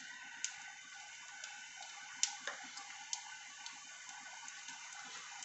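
Mustard seeds, cumin, chana dal and urad dal frying in hot oil in a kadai for a tempering: a faint steady sizzle with a few sharp pops from the seeds.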